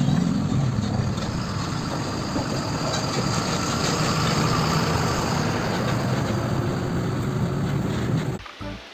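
Truck engine sound effect, running steadily with a deep rumble, then cutting off suddenly about eight seconds in.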